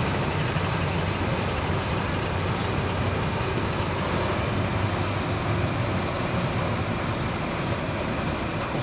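International Harvester hot farm pulling tractor's diesel engine running steadily at the end of a pull, sitting still hooked to the sled.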